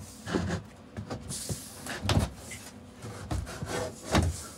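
Plywood panel knocking and scraping against the wooden cubicle walls as it is pushed into place, a series of dull thumps, the loudest about two seconds in and near the end.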